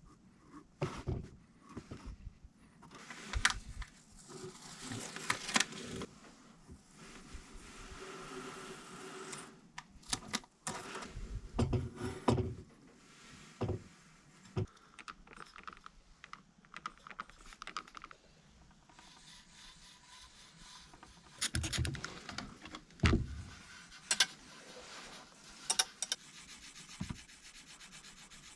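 Close hand work on a small diecast model car: stretches of rubbing or sanding, with scattered light clicks and knocks as the parts are handled and set down.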